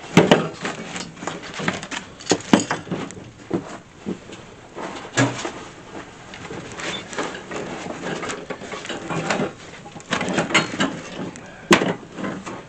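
Cardboard box and packing being handled as parts are pulled out of a tightly packed box: irregular scraping, rustling and knocking, with one sharp knock near the end.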